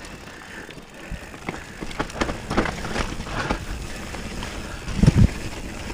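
Mountain bike riding down a dirt trail: tyres rolling over ground and rocks, with many small rattling clicks from the bike and a heavier thump about five seconds in.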